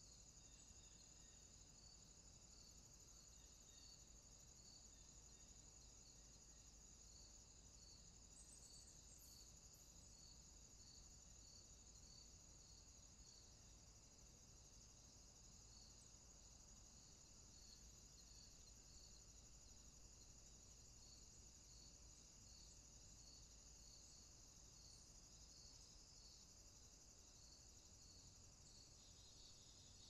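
Faint crickets: a steady high-pitched trill, with a softer chirp repeating about every three-quarters of a second.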